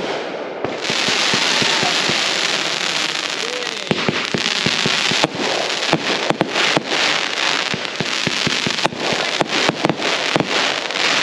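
Aerial fireworks bursting overhead with a dense, steady crackle from about a second in, broken by many sharp pops throughout.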